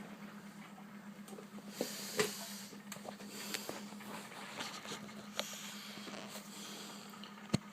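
Bendix 7128 washing machine running mid-wash: a steady low hum under a faint hiss, with scattered sharp clicks and knocks.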